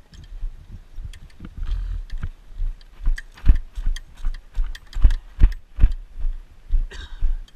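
Footsteps of a person walking, low thuds about twice a second, with light clicks and rattles in between.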